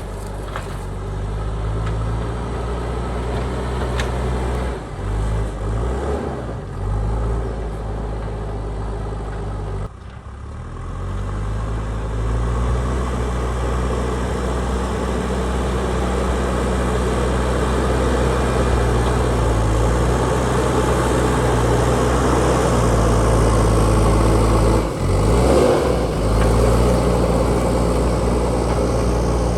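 Diesel engine of a JCB backhoe loader running steadily, its pitch shifting a few times as it works; a sudden brief drop about ten seconds in.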